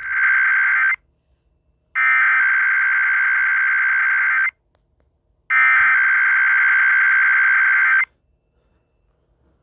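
Emergency Alert System SAME header for a Required Weekly Test: three bursts of data tones, each about two and a half seconds long, with a second of silence between them. The first burst is already under way and jumps louder at the very start.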